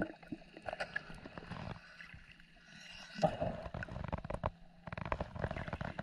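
Water splashing and gurgling in irregular gushes, with a stronger surge about three seconds in and busier crackling from about five seconds, over a faint steady hum.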